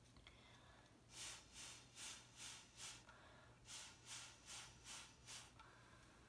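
Short puffs of breath blown through a drinking straw onto wet acrylic pour paint, about two a second, in two runs of about five with a short pause between.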